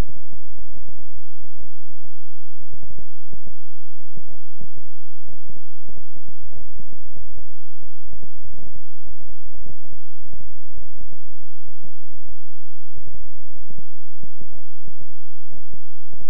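Synthesized low 'healing frequency' tone track: a loud, steady low hum made of several held pitches, broken by quick, irregular pulses several times a second.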